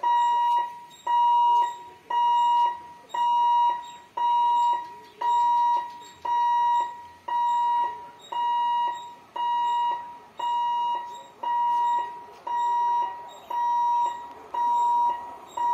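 Level crossing warning hooter beeping about once a second, each beep a steady tone a little over half a second long, warning that a train is approaching the crossing.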